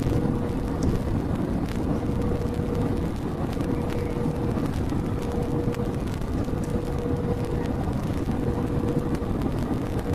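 Cabin noise of an Airbus airliner on approach to land, heard from a window seat over the wing: a steady rumble of the jet engines and airflow with a constant hum tone running through it.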